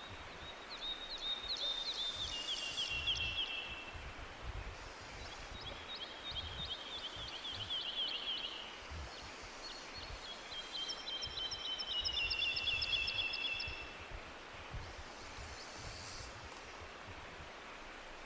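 A tropical songbird singing three long, rapid trills, each a fast string of high notes that steps down in pitch toward its end, over the steady rush of a jungle waterfall.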